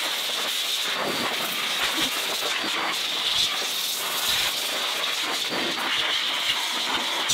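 Heated Gravitis car-drying blower blowing a steady hiss of air through its hose nozzle, drying water off a freshly rinsed engine bay.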